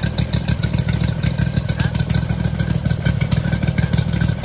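Honda GX620 20 hp V-twin engine running steadily, a fast, even stream of firing pulses, while its charging circuit is tried on a car battery.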